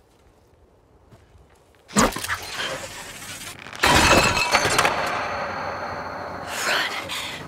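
Glass bottles strung up as a tripwire alarm crashing and shattering: a sudden crash about two seconds in, a second, louder crash about four seconds in, then clattering, ringing glass that dies away near the end.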